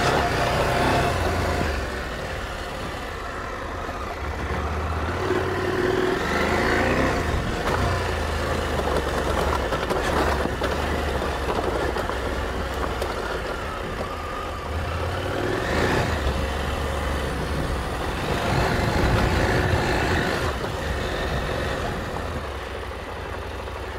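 KTM 890 Adventure R's parallel-twin engine running under way at low speed on a dirt track, its revs rising and falling several times as the throttle is opened and closed, with tyre and gravel noise beneath.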